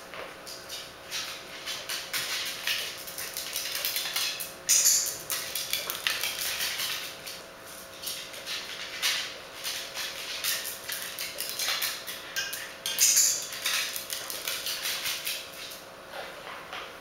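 Irregular clicking and tapping, several a second, with two louder bursts about five and thirteen seconds in: a short-legged dog's claws on a tiled floor.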